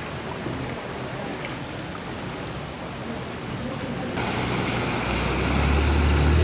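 Floodwater washing along a street, a steady rushing noise. About four seconds in the sound changes, and near the end a motor scooter's engine comes in, getting louder as it rides through the water.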